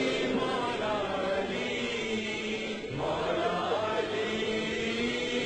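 A crowd of men weeping and wailing aloud together, many voices overlapping in long, drawn-out cries of mourning.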